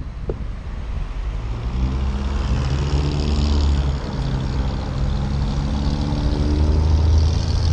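Car engine pulling away and accelerating, its deep running note growing louder over the first couple of seconds and then holding steady, with a hiss of wind and road noise over it.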